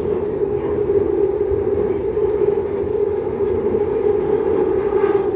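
Seoul Subway Line 2 electric train running at a steady pace, heard from inside the car: continuous running noise with a constant hum.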